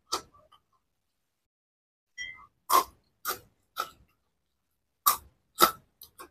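Close-miked crunching of crisp potato-flavoured snack sticks being bitten and chewed. One sharp crunch comes right at the start, then after a pause there is a run of crunches about every half second.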